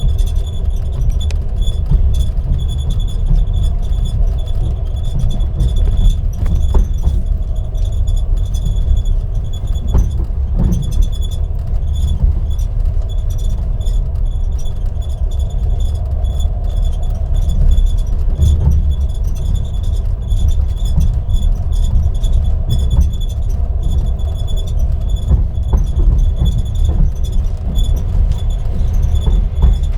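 Moving passenger train carriage with a steady low rumble and a faint steady high whine, and its ceiling panels creaking now and then, a few short creaks spread through.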